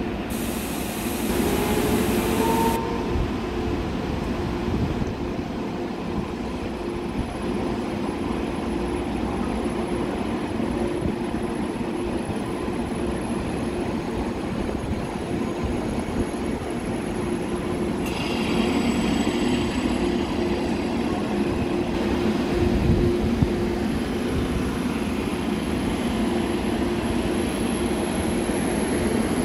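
KTX-I high-speed train at the platform, its running gear and electrical equipment giving a steady hum with a thin high whine. A hiss rises in the first second and stops about two and a half seconds in.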